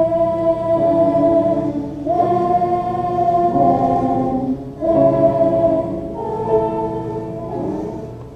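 Choir singing three long, held chords, each lasting a few seconds with a brief break between them. The sound is muffled and a little distorted from being recorded inside a pocket.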